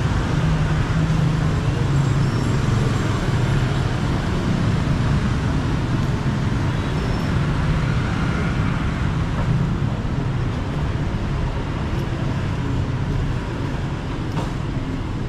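Road traffic noise: a steady hum of passing vehicle engines.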